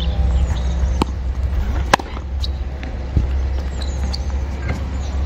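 Tennis balls being hit and bouncing on a hard court: three sharp single knocks, the loudest about two seconds in, over a steady low rumble.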